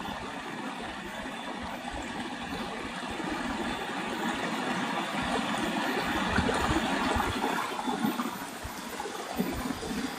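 Running water of a stream, flowing steadily, a little louder in the middle.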